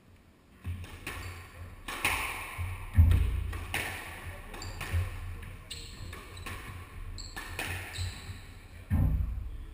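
Squash rally: the ball struck by rackets and smacking off the court walls in hard, echoing hits, the loudest about three seconds in, with shoes squeaking on the wooden court floor between shots.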